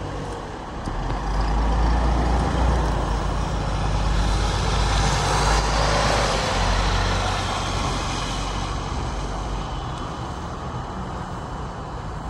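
Diesel city bus driving close past, its engine drone and tyre noise swelling to a peak about halfway through, then fading as it pulls away.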